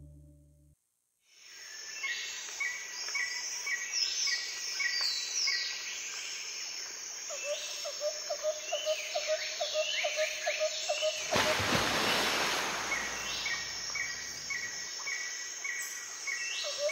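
Birds chirping and calling in repeated short notes over a steady insect-like hiss, fading in after a second of silence. A rushing noise rises over it from about eleven to fifteen seconds in.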